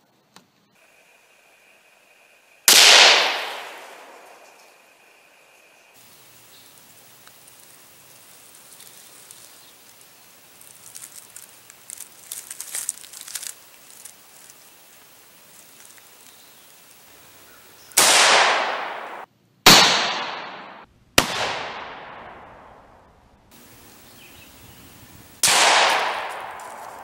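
Five shots from a 7.62x54R Mosin-Nagant bolt-action rifle, one about 3 seconds in, three close together around 18 to 21 seconds, and one near the end, each followed by a long fading echo. Light clicking and rattling comes in between, about halfway through.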